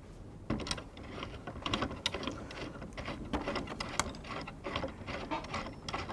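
A Würth portable clamping vise being tightened onto a wooden board: irregular metallic clicks and rattles from its screw and jaw mechanism, with one sharper click about four seconds in.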